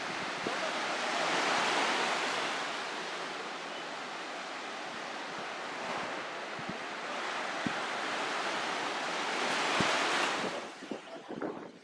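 Sea waves washing and breaking, swelling twice, with wind buffeting the microphone; the noise falls away suddenly just before the end.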